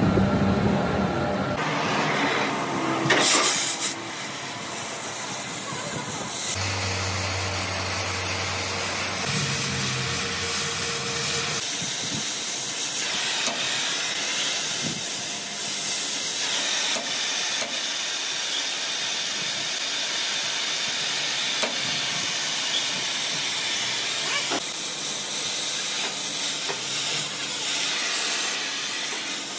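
Oxy-fuel gas torch flame hissing steadily as it heats the welded joint of a camshaft mounted in a lathe until the joint glows red.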